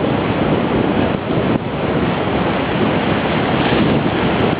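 Wind buffeting the microphone over the steady rush of water past a moving boat.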